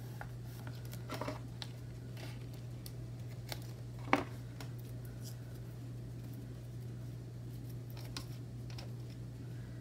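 Scissors snipping washi tape, with one sharp snip about four seconds in, among a few light clicks and rustles of tape and paper being handled. A steady low hum runs underneath.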